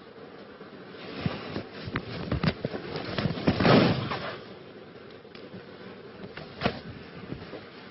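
A quick run of bangs and thumps that builds to a loud crash about four seconds in, then one more sharp bang near the end: objects in a TV studio being struck and knocked about by a raging presenter.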